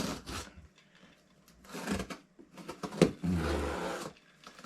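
A cardboard shipping box being opened by hand: a sharp snap, then scraping and tearing of tape and cardboard, a few clicks, and about a second of steady tearing and rustling near the end.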